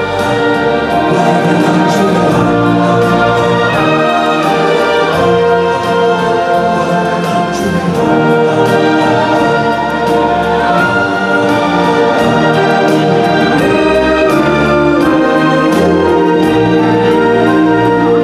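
Loud orchestral stage-show music with brass and a percussion beat.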